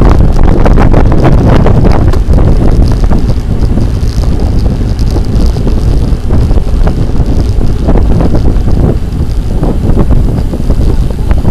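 Loud wind buffeting the microphone of a camera riding along on a moving bicycle, a dense, fluttering low rumble with no steady tone.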